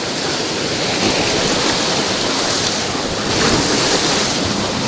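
Whitewater of a river rapid rushing and splashing loudly around a raft.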